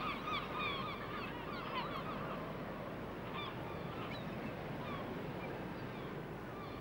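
A flock of birds calling: many short, overlapping calls, thick for the first two seconds or so and then sparser, over a steady background hiss.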